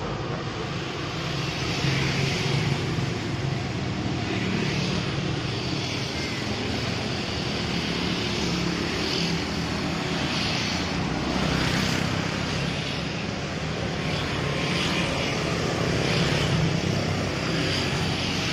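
Steady rumble of motor engines with a hiss, swelling a little now and then.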